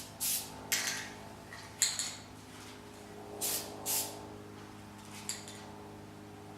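Aerosol can of black spray paint giving about six short hissing bursts, a fraction of a second each, as a foam tube is coated.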